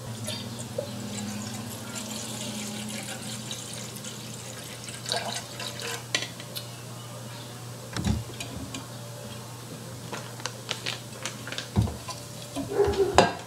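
Water poured from a glass pitcher into a bowl of powdered slime mix, with scattered light clicks and knocks. A short clatter comes near the end.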